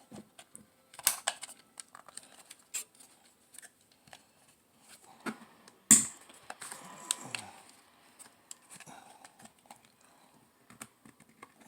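Plastic clicks and scrapes of a small portable radio's case being handled while its back cover is pried at, with a sharp click about six seconds in.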